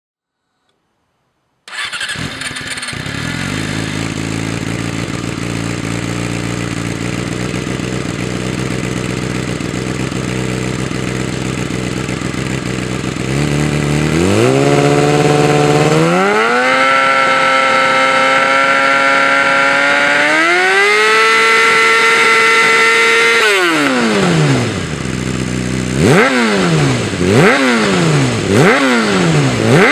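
Yamaha R6 600cc inline-four sport bike with a Hindle EVO Megaphone exhaust fires up about two seconds in and idles steadily. Its revs are then raised and held at two successively higher steady speeds before dropping back to idle, and near the end the throttle is blipped about five times in quick succession, each rev rising and falling sharply.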